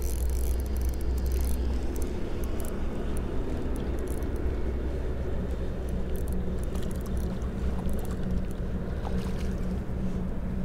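A spinning reel being wound in on a light rock-fishing rod as a small sea bass is played and landed, over a steady low rumble with scattered light clicks.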